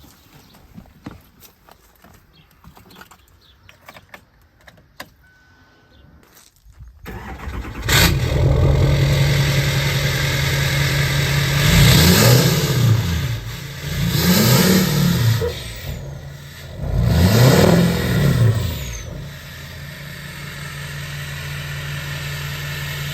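LML Duramax 6.6-litre V8 turbodiesel starting about a third of the way in, after a few faint clicks, and running through a 3-inch straight-pipe exhaust with the emissions deleted. It is revved three times, each rev rising and falling, then settles to a steady idle.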